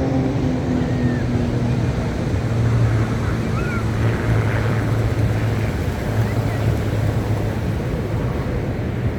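Aerobatic propeller plane flying past, its engine note falling in pitch and fading over the first two seconds, then a steady distant engine drone over a constant rush of wind and surf.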